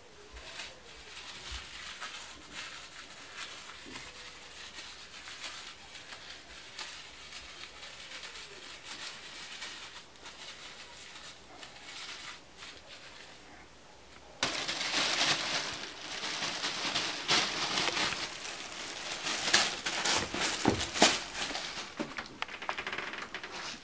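Plastic bag crinkling and rustling under a cat's weight as it shifts, growing louder and busier in the second half as the cat gets up and moves about on it.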